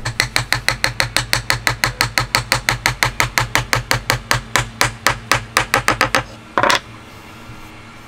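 Steel claw hammer striking the end of a hardwood piece in quick, even blows, about five or six a second, driving a dovetail corner joint together into a wooden block; the blows stop about six seconds in. A brief scraping sound follows shortly after.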